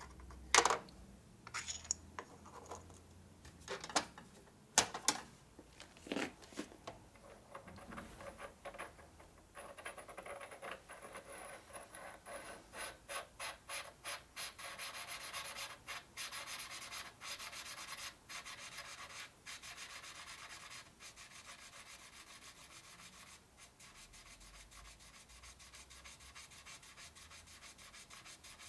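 A few sharp metal clicks and knocks, then about twenty seconds of fast, evenly repeated rasping strokes of a hand tool worked against a metal part.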